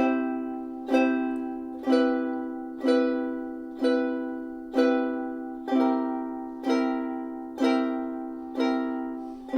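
Ukulele chords strummed slowly, one strum about every second, each chord ringing out and fading before the next. The chords change partway through as it works along a C, C major 7, C7, F, G7 progression.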